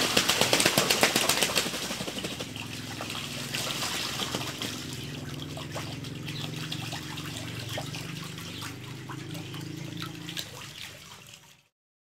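Ducks splashing and flapping their wings while bathing in a shallow trough of water: a loud burst of wing-beating and splashing in the first couple of seconds, then lighter splashing and dabbling that cuts off suddenly near the end.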